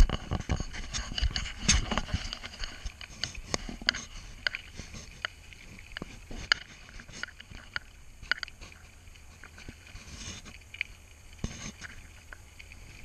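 Bicycle rolling over a gravel road: tyres crunching on the gravel, with irregular clicks and rattles from the bike and camera mount over a low rumble. A sharp knock right at the start, the clicks thinning out after about two seconds.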